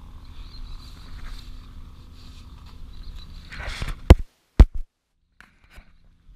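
Boat motor idling in neutral, a steady low hum, then two loud sharp knocks about half a second apart a little past halfway, after which the sound drops away almost entirely.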